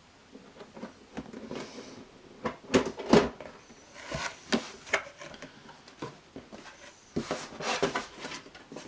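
A cardboard box being opened and its packaging handled: rustling and scraping with an irregular run of knocks and taps, loudest about three seconds in.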